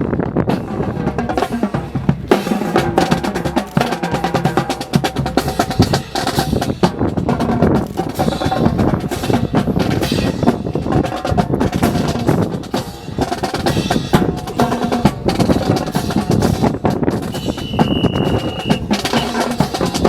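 Rapid snare-style drumming with drum rolls and heavier bass strokes, going on steadily. A short steady high tone sounds near the end.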